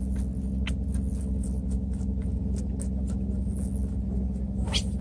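Knife cutting and scraping a dotted gizzard shad on a plastic cutting board, a scatter of light clicks and scrapes with a sharper one near the end, over a steady low mechanical hum.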